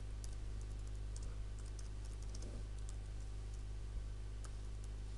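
A computer keyboard being typed on: a scattered run of light, quick keystrokes over a steady low hum.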